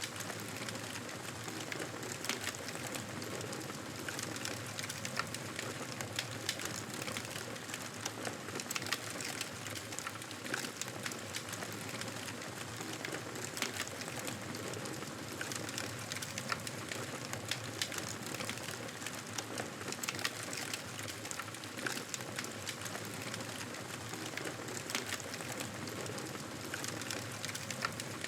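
Wood fire crackling in a fireplace: a steady hiss dotted with frequent small, sharp pops and snaps.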